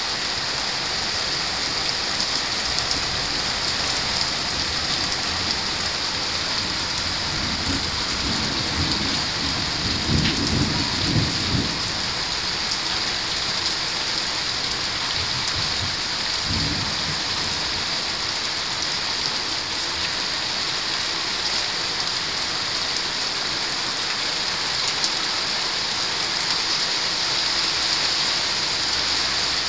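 Steady rain hissing down throughout, with a rumble of thunder a quarter of the way in that swells for about four seconds, and a short second rumble a few seconds later.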